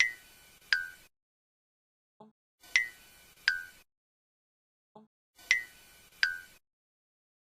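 Cartoon eye-blink sound effect: pairs of short, bright clinks about 0.7 s apart, the second slightly lower in pitch, each pair led by a faint low blip. It repeats about every three seconds, three times.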